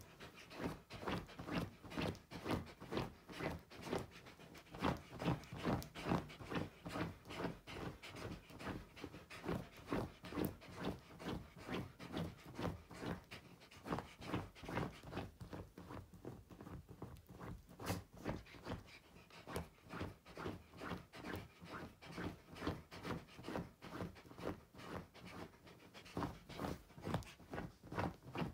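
Wolfdog panting close up, a steady run of quick, breathy pants at about three a second.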